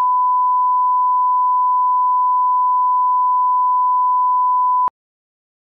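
Steady 1 kHz line-up test tone, a single pure beep played with colour bars, cutting off abruptly about five seconds in.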